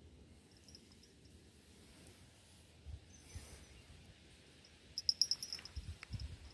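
Quiet outdoor ambience with faint low handling rumble, broken about five seconds in by a short run of rapid, high-pitched clicks, followed by a few low thumps near the end.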